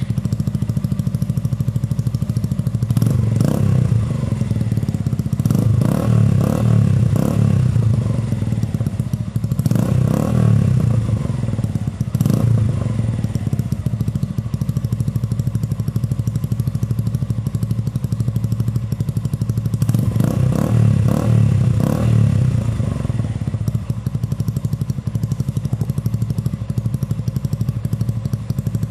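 Suzuki Gixxer 155 Fi single-cylinder engine idling through an Akrapovic M1-style slip-on exhaust fitted with a small-outlet dB killer with a screen, revved in short blips several times in the first half and again around twenty seconds in, settling back to idle between.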